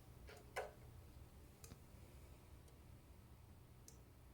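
A few faint clicks and taps over near silence, the sharpest a quick double click about half a second in: small boxes and packaging being handled and opened.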